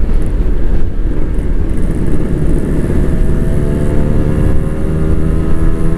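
Two-stroke Kawasaki Ninja 150 motorcycle engines running on the road, with wind rush on the microphone. From about halfway the engine pitch climbs steadily as the bikes accelerate.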